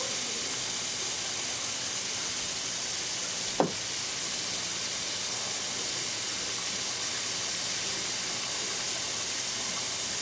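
Water running steadily from a tap onto a cutting board, an even hiss, with one sharp click about three and a half seconds in.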